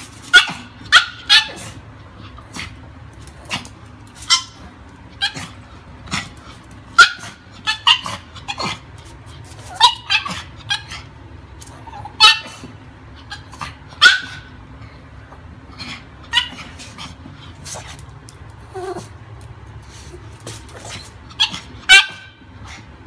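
Small Pomeranian–Pekingese mix dog barking in short, high-pitched yips, irregularly spaced and sometimes in quick pairs: excited play barking.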